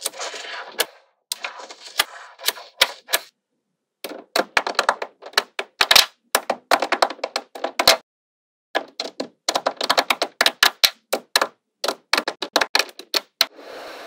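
Small magnetic balls clicking and snapping together as strips of them are pressed into a flat grid: quick runs of sharp clicks, broken by short silences between runs.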